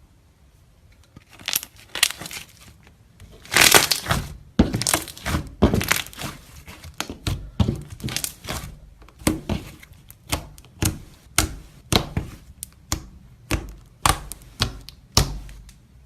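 Slime being pressed and squeezed by hand, giving a run of sharp crackling pops. They are dense for a few seconds after about a second in, then settle to about two a second.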